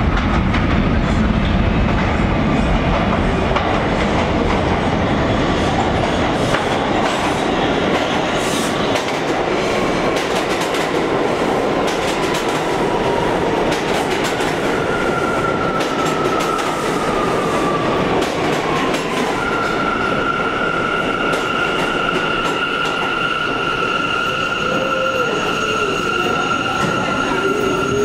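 A Bombardier R179 subway train pulling into an underground station: wheels rumbling and clacking over the rail joints, then a whine that falls in pitch as the train slows, and a steady high tone once it has stopped for the last several seconds.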